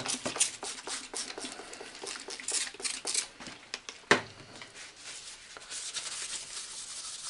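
Trigger spray bottle squirting repeatedly onto a cast-iron machine part, about three quick squirts a second, then a single knock about four seconds in. From about five and a half seconds, a hand wiping across the metal with a steady rubbing hiss.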